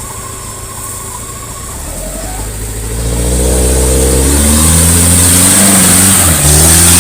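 Off-road 4x4 engine revving hard under load as the vehicle tries to pull free. The engine swells loudly about two seconds in, then its pitch drops and holds as it labours, with a brief dip near the end before it picks up again.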